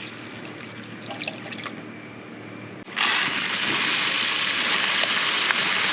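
Chicken broth going into a hot cast iron pan of browned sausage and onions. The liquid trickles, then about halfway a loud, steady hiss sets in suddenly.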